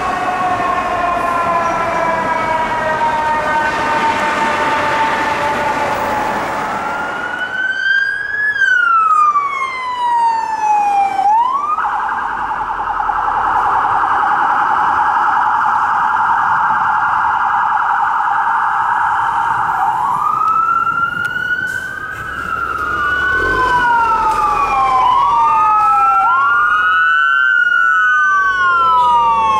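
Fire truck sirens responding. A siren winds slowly down over the first seven seconds. Electronic siren wails then rise and fall, a fast warbling tone runs for about eight seconds, and overlapping wails follow.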